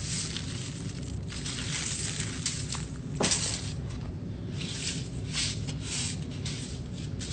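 Damp dyed salt being dumped from a plastic zip-top bag onto an aluminium-foil-lined tray and then spread by hand: continuous crinkling of plastic and foil with a gritty rustle, and a sharper crinkle about three seconds in.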